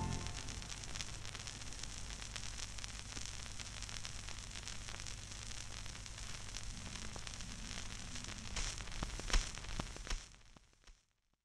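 Surface noise of a shellac 78 rpm record as the stylus runs in the run-out groove after the music: steady hiss and crackle with a low hum, a few louder clicks about nine seconds in, then fading out.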